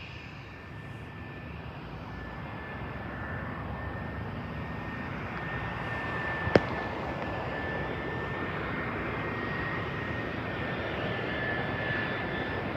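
Jet airliner's engines on landing approach, a steady rushing rumble with a high whine that grows gradually louder as the plane nears. One sharp click about six and a half seconds in.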